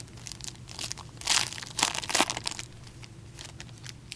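A pack of trading cards being torn open by gloved hands, the wrapper crinkling and crackling in irregular bursts, loudest about a second and two seconds in.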